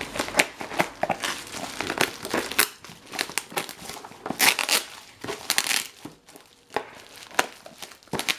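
Plastic packaging being torn open and crinkled by hand, in irregular crackling bursts with a few sharp snaps.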